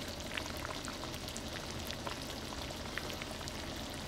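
Broth and oil in a hot wok sizzling softly, a steady faint crackle with scattered small pops.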